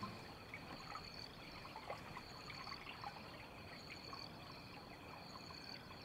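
Faint trickling and dripping of water around a wooden canoe on a calm river, over a steady high drone of rainforest insects.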